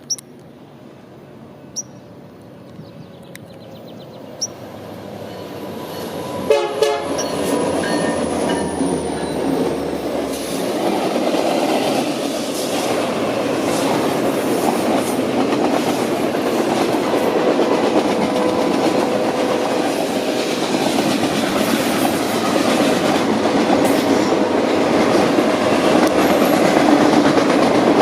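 BNSF freight train led by EMD SD60M and SD75M diesel locomotives approaching and passing: the sound swells over the first several seconds, the horn sounds, then a steady loud rumble of locomotives and cars with wheels clattering over the rails.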